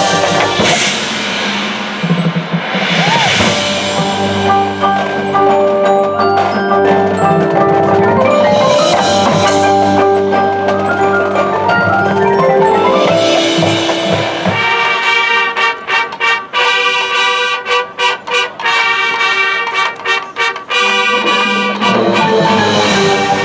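Marching band music led by the front ensemble's mallet percussion (marimba, xylophone, glockenspiel) over held band chords, with several cymbal swells. From about fifteen seconds in the mallets play a run of quick repeated notes broken by short gaps, before the full sound returns near the end.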